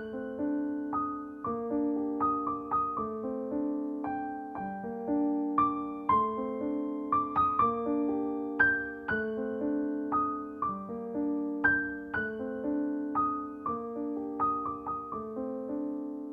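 Background music: a gentle piano melody of single notes over simple chords, each note struck and fading, at an easy steady pace.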